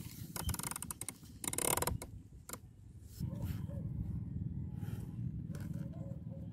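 Clicking and mechanical handling noise from the air rifle and scope, with a dense run of clicks in the first two seconds, where the caption calls for 37 clicks up on the elevation turret. From about three seconds in, a steady low rumble follows.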